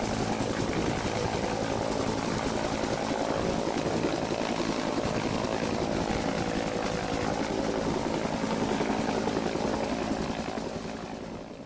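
Helicopter in flight: a steady, rapid beat of the rotor blades over engine noise, fading out near the end.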